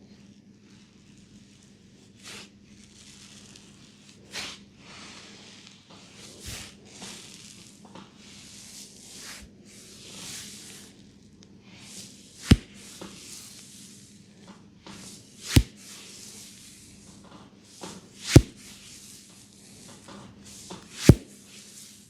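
Head massage: hands rubbing and brushing over hair and scalp, then four sharp smacks about three seconds apart, over a low steady hum.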